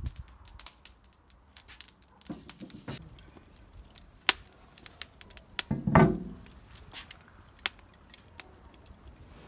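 Wood and charcoal fire crackling under a cast-iron kazan, with scattered sharp pops. About six seconds in, a louder knock with a short ring as the heavy cast-iron lid is taken off the kazan.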